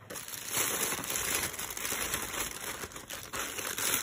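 Plastic bubble wrap and a thin plastic bag crinkling and rustling as they are handled and pulled off by hand, starting about half a second in.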